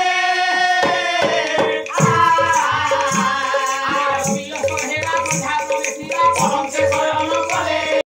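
Pala folk ballad singing: a singer holds a long note, then sings on as a two-headed barrel drum starts beating with jingling rattle-like percussion about two seconds in. The music cuts off abruptly at the end.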